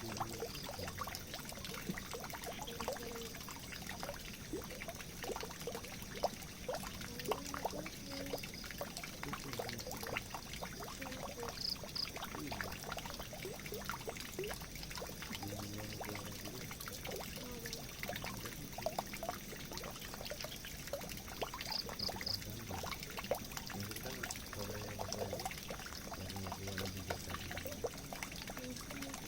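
Water pouring and trickling into a drain, a steady rush full of small irregular splashes. A brief high chirp sounds twice, about twelve and twenty-two seconds in.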